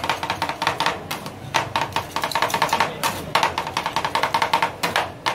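Two metal spatulas rapidly chopping and tapping ice cream mix on a stainless steel cold plate for rolled ice cream, making quick runs of clacking taps in several bursts with short pauses between them.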